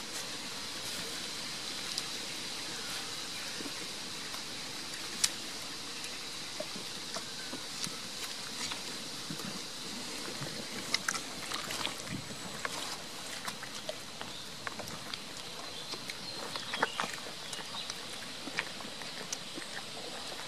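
Goats biting and chewing a tomato held out by hand, heard as scattered short clicks and chewing over a steady outdoor hiss.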